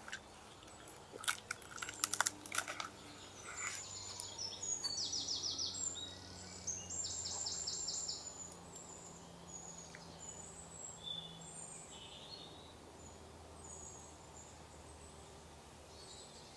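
Small birds chirping, with two fast high trills about four and seven seconds in. A few light clicks and crackles in the first three seconds.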